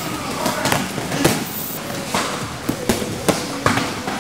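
Boxing gloves and shin guards landing during kickboxing sparring, several pairs at once: an irregular run of sharp slaps and thuds, roughly two or three a second.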